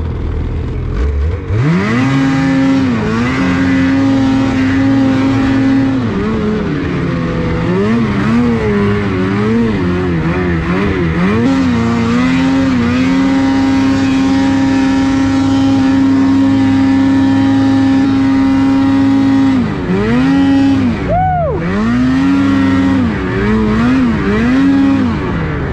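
Ski-Doo 850 snowmobile's two-stroke engine revving up about a second and a half in and held at high revs while the sled plows through deep powder. The revs waver up and down in between, with a sharp drop and rev-up near the end.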